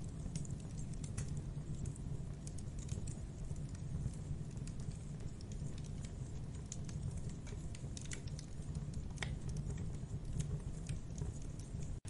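Wood campfire burning: irregular sharp crackles and pops over a steady low rumble, with one louder pop about nine seconds in.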